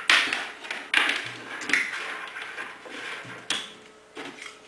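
Network cables and small plastic devices being handled and set down on a wooden desk: a few sharp clicks and knocks, the loudest at the start and about a second in, with rustling between.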